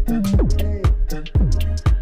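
Background music with a steady electronic beat, a deep drum hit about twice a second under a bass line.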